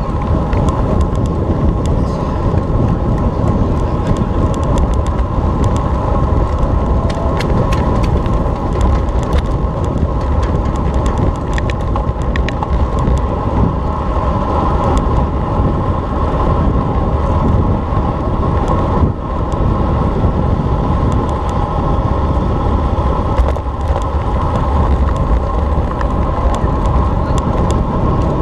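Road bicycle being ridden: a steady rumble of tyres on the road and rushing air, with scattered small clicks and rattles.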